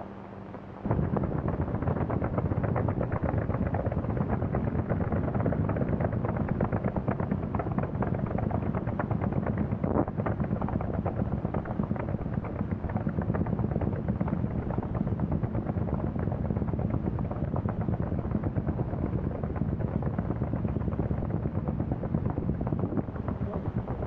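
Several early farm tractor engines running together in a field, a rapid, steady popping of their exhausts that starts abruptly about a second in, heard through an old newsreel's film soundtrack.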